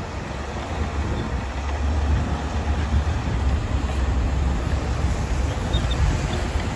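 Diesel engine of a Shantui DH17-C2 bulldozer running steadily under load, a deep continuous rumble while it works the sand.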